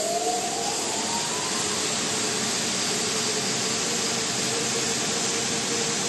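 Wide belt sander running with a steady hiss and a steady hum, while one of its motors spins up with a rising whine during the first couple of seconds.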